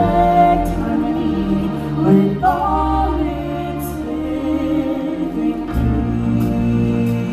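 Live stage-show music: a choir singing sustained chords over orchestral backing, with a bass line coming in near the end.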